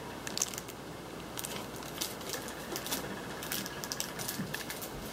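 Light clicks and rustles of handling: a plastic-packaged pack of pens and other unboxed items moved about and set down on a table.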